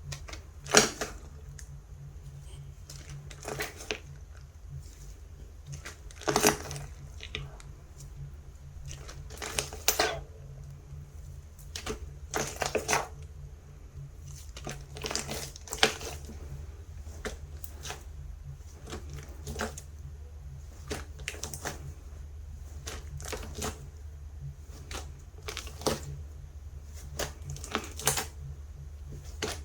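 Hands squeezing and pressing a thick slime with a little clay mixed in, giving irregular clicky pops and crackles, some in quick clusters. A low steady hum runs underneath.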